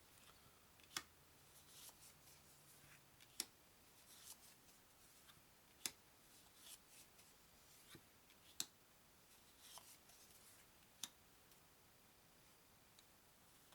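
Game cards being handled: faint rustling with a sharp click about every two and a half seconds, five in all.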